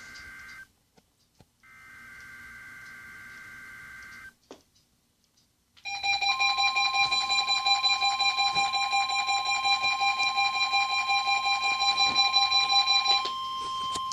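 NOAA Weather Radio SAME header: two harsh digital data bursts a little over a second apart. Then, after a short pause, the steady 1050 Hz warning alarm tone comes in and sets off several weather alert radios, whose loud rapid-pulsing alarm beeps sound over it for about seven seconds before giving way to a higher single beep near the end.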